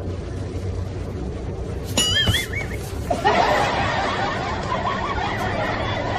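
Low steady hum of a bus interior. About two seconds in comes a short warbling whistle, and from about three seconds in a crowd of people breaks into laughter that keeps going.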